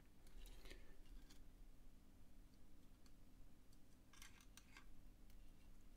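Faint, scattered small clicks and light scrapes of small parts being handled during the teardown of a vape mod, in a cluster about half a second in and another about four seconds in. A low steady hum sits under them.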